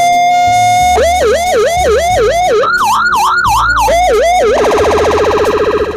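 AS820 300W electronic siren sounding through its horn speaker as it is switched between tones. It holds a steady tone for about a second, then gives a fast yelp of about four rising-and-falling sweeps a second. The yelp shifts higher in pitch for about a second and drops back, and the siren then goes to a very rapid warble that cuts off just before the end.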